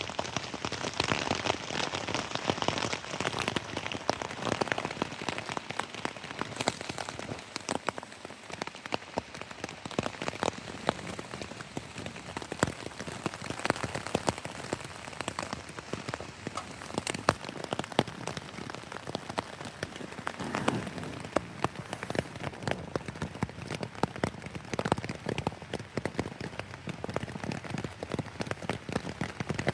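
Heavy rain falling, with a dense, steady patter of individual drops striking close by.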